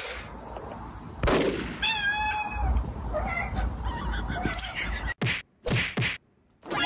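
A plastic trigger spray bottle squirting once, a sudden hiss that trails away, followed by a short wavering nasal cry. Short choppy bursts of sound come near the end.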